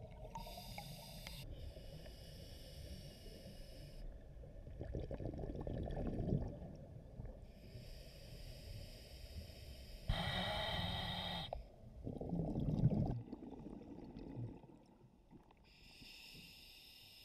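Scuba regulator breathing underwater: slow breaths, each a hissing inhalation through the regulator followed by a low bubbling rumble of exhaled air.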